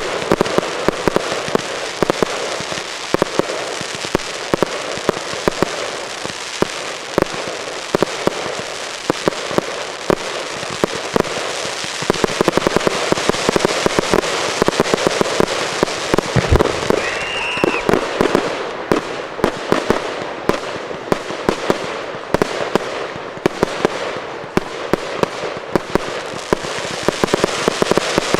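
Fireworks display: a dense, continuous rapid crackling and popping of bursting shells, with one heavier boom about two-thirds of the way through.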